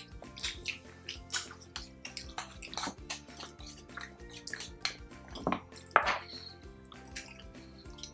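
Close-miked wet eating sounds: chewing and lip smacking while eating saucy braised pork and rice by hand, a quick run of small wet clicks with two sharper smacks about two thirds of the way in, over soft background music.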